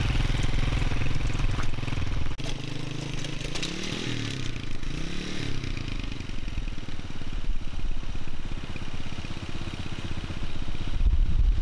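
Small motorcycle engine running as it climbs a rough dirt track, revving up and back down twice about four seconds in, then running more steadily and faintly, with a louder low rumble near the end.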